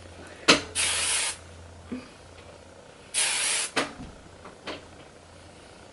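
Hairspray sprayed onto the hair in two short hissing bursts about two seconds apart, with a few light clicks around them. It is being applied to set freshly crimped waves so they last longer.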